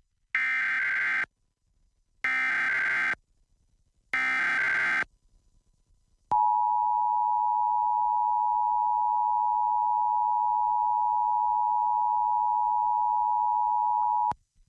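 Emergency Alert System tones for a Required Monthly Test: three short bursts of SAME header data, each about a second long. After a pause comes the steady two-tone attention signal (853 and 960 Hz), held for about eight seconds and cutting off suddenly.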